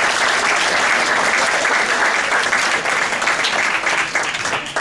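A room full of students applauding with steady, dense clapping that dies away near the end.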